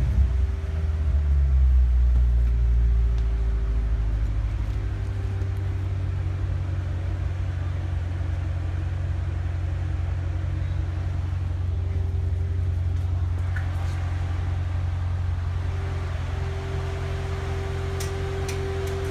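2014 Corvette's 6.2-litre V8 running steadily under way, a low drone that is a little louder in the first few seconds and then settles. A few light clicks come near the end.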